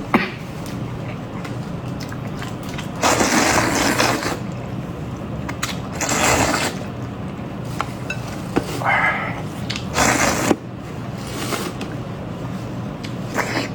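Close-miked eating sounds: four loud noisy bursts of mouth and food noise a few seconds apart, with a few sharp clicks, over a steady low hum.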